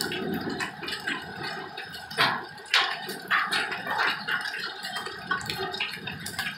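Heavy rain mixed with marble-sized hail falling on a concrete patio: a steady hiss of rain dotted with sharp clicks of single hailstones striking, a few louder cracks about two to four seconds in.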